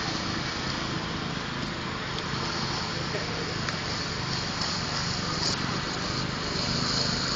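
Concrete power trowel's small petrol engine running steadily.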